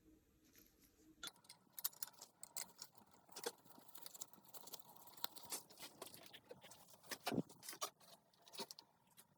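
Faint, irregular clicking and tapping, as of small hard parts and tools being handled, with a few sharper knocks among them.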